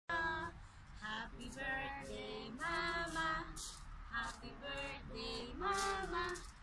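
A woman and a boy singing a song together in held notes, over a low steady rumble.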